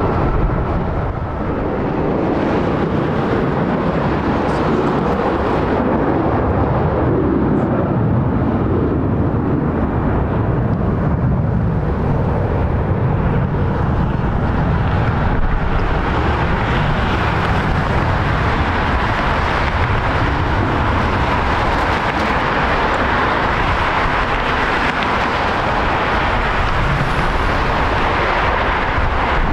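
Airbus A320-family airliner's jet engines at takeoff power, a steady roar as it accelerates down the runway and climbs away, growing fuller and brighter about halfway through.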